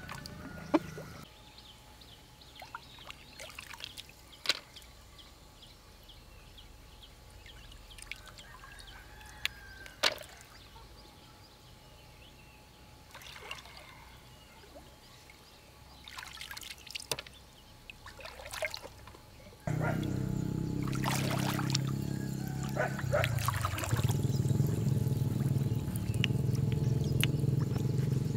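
Hands sloshing and splashing in shallow water while picking snails, with scattered sharp splashes and drips. About twenty seconds in, a louder steady low sound begins abruptly and carries on under the water sounds.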